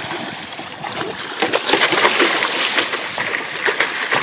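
A big king mackerel (kingfish) thrashing at the surface beside the boat, throwing up water in irregular splashes. The splashing grows louder and busier about a second and a half in.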